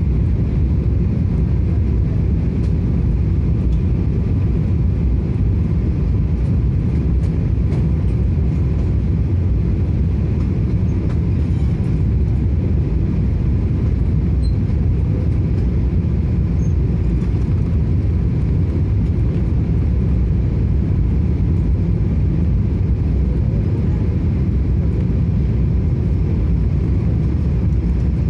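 Steady low rumble of a Boeing 777's engines and airflow heard inside the passenger cabin, with a faint constant whine above it.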